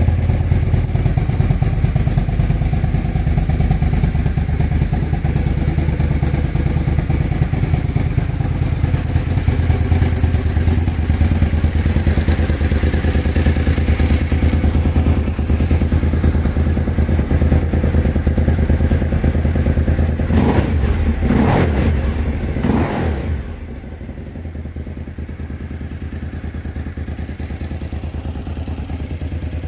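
Suzuki TL1000R's V-twin engine idling steadily after a fix for a misfire at idle. Three quick throttle blips come about two-thirds of the way in, after which the engine sounds quieter and duller.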